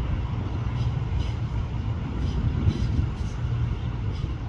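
A State Railway of Thailand express parcel train rumbles steadily and low as it runs away around a curve, with a few faint clicks.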